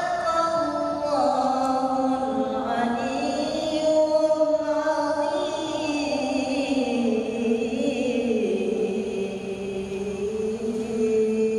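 A boy reciting the Quran in the melodic tilawah style, singing long held notes that waver and glide in slow ornamented runs.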